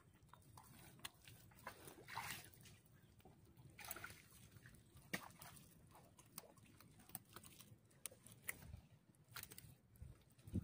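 Faint, scattered sloshing and small splashes of shallow river water, with a few light clicks, as hands grope through the riverbed mud for clams.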